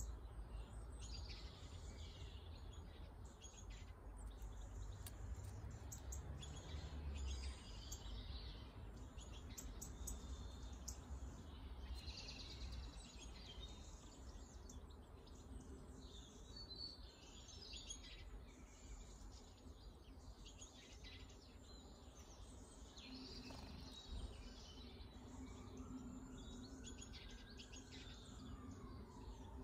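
Small garden birds chirping and twittering faintly, short high calls scattered all through, over a low background rumble. Near the end a faint hum rises and then falls in pitch.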